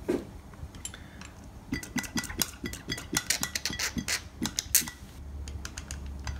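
An oil can with a flexible spout clicking as it is pumped, squirting oil onto a gearbox layshaft's gear and needle roller bearing, with light metal clinks. The clicks come in a quick run lasting about three seconds.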